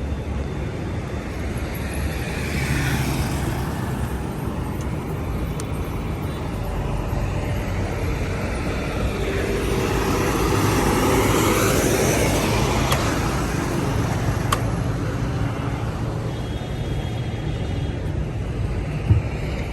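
Golf greens mower engine running steadily, swelling and falling away twice as it works past.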